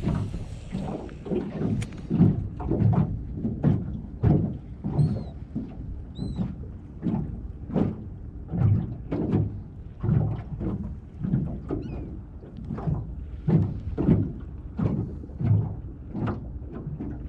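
Small waves slapping against the hull of a small flat-bottomed boat drifting with its motor off, about one or two dull thumps a second.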